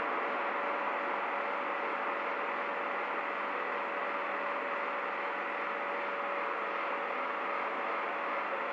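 Steady noise of street traffic, easing slightly as cars move off in the first moments, with a faint steady hum.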